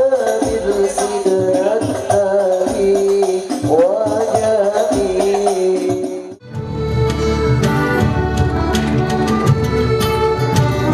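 Islamic devotional group singing by male voices with frame drums beating along. About six seconds in, it cuts abruptly to a different piece of music with a heavy steady bass and many sharp percussive hits.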